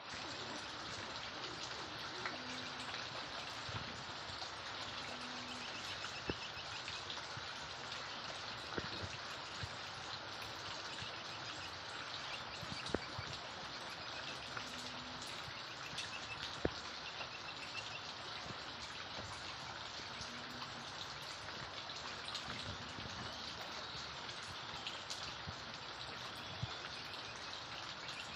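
Steady rain, with occasional sharper drips standing out, and a few faint bird calls.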